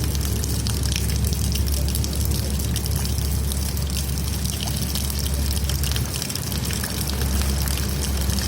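Rainwater trickling and dripping steadily: a continuous patter of small drop ticks over a low, even rumble.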